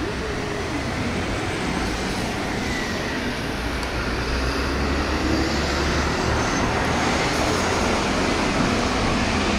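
Road traffic noise: a steady rumble and hiss of cars on a city street.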